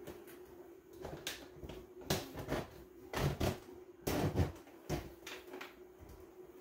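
Plastic knocking and scraping as a 3D-printed PETG hive connector is slid and pressed into place on the hive's plastic frame: a run of clicks and rubbing scrapes in short clusters, the loudest a little past the middle.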